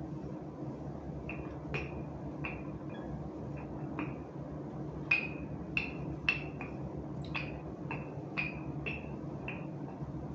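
Rolling pin rolling out pastry dough, knocking with a sharp ringing click about every half second as it is worked back and forth.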